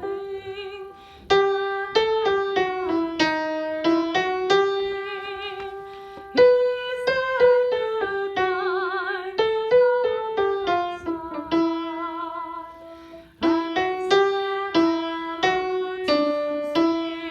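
Piano or keyboard playing a melody note by note, each note struck and left to ring over a lower held note, with a few wavering sustained tones near the middle and end.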